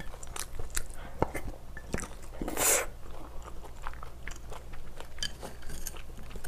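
Person eating rice and spicy stew close to the microphone: chewing, with many small wet mouth clicks and a short rushing noise about two and a half seconds in.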